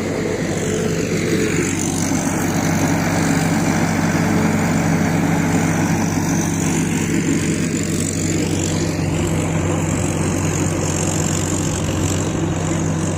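Rice combine harvester's engine running with a steady drone as the machine works the field.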